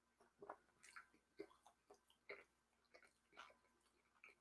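Faint, irregular wet chewing and lip smacks of a person eating a soft barbecue-sauced pork patty.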